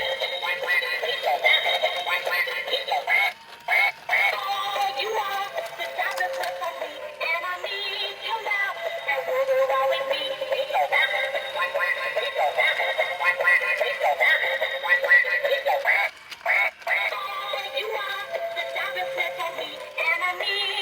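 A tinny electronic song with a synthesized singing voice, thin and with no bass. It breaks off briefly twice, once a few seconds in and again near the end.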